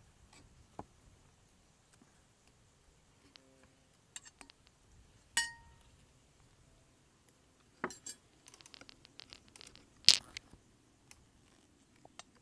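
Tableware clinking: a glass struck once about five seconds in, ringing briefly, then a run of small clicks and scrapes and a sharp clatter near the end, the loudest sound.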